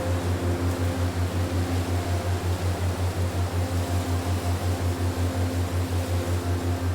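Relaxation sound-therapy audio: a low hum pulsing evenly about six times a second under a steady wind-like hiss, with soft held tones fading in and out.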